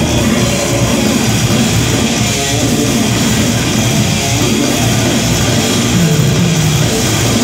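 Live heavy metal band playing at full volume: distorted electric guitars and a drum kit, heard from the crowd in a large hall.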